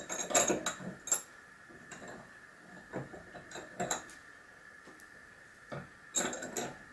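Sharp metal clinks and rattles from a bench vise being worked and the wire clamped in its jaws, in three short clusters: near the start, in the middle and near the end.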